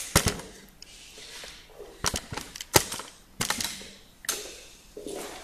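Several sharp, irregular clicks and knocks, some in quick clusters, with rustling between them.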